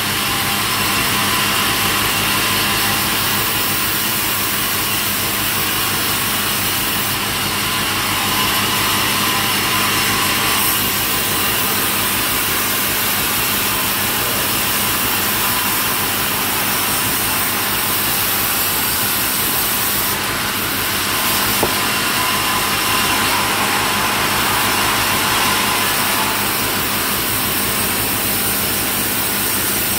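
Sawmill saw running steadily and loudly without a break.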